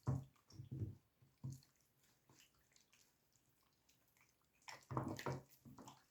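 Hands squishing and rubbing a wet soy-sauce marinade into raw pork: short wet squelches, a few near the start and a denser run about five seconds in.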